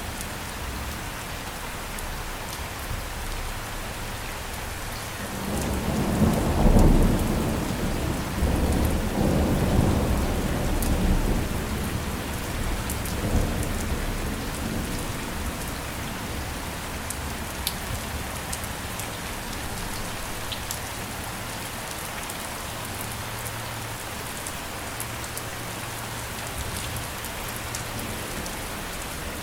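Steady rain with fine drops pattering, and a low rumble of thunder that swells about five seconds in, peaks a couple of seconds later and rolls on for several seconds before fading away.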